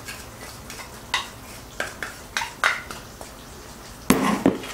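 Wooden spatula knocking and scraping against a porcelain bowl to get the palm sugar out, a handful of short knocks, then stirring in a stainless steel pot of curry, with a louder clatter near the end.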